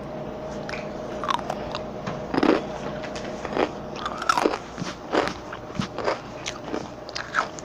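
Chips being bitten and chewed: irregular crisp crunches and crackles, a few of them louder about two and a half, four and five seconds in.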